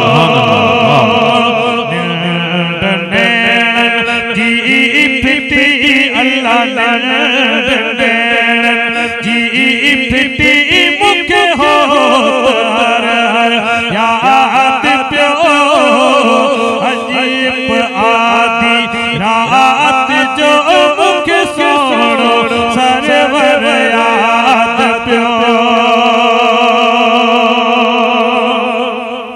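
Men chanting a Sindhi molud, a devotional poem, without instruments: a lead male voice sings long ornamented lines over a steady held drone, heard through microphones.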